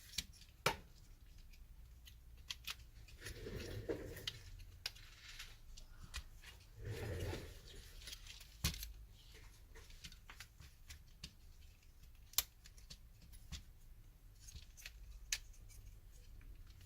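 Small plastic parts of a PS4 controller being handled and fitted, with scattered light clicks and two short stretches of rubbing as the circuit board is pressed back into the shell.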